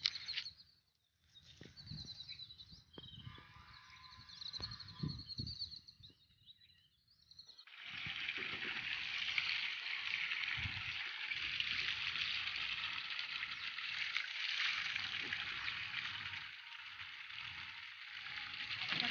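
Water running in a steady rushing stream that starts about eight seconds in. Before it, a few faint bird chirps and light knocks.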